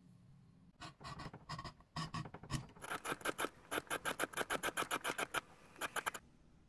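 Hand skiving blade shaving the flesh side of suede leather to thin it, a run of short scraping strokes. They come one by one at first, then quickly at about five a second, and stop about half a second before the end.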